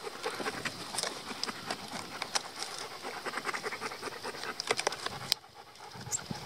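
Rotten dry wood being broken and torn off by hand for kindling: a run of crackles and snaps, with one sharp snap about five seconds in.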